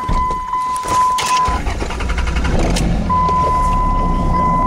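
Rubbing and knocking from a handheld camera being moved, over a low steady rumble. A steady high electronic tone runs alongside and breaks off for about a second and a half near the middle.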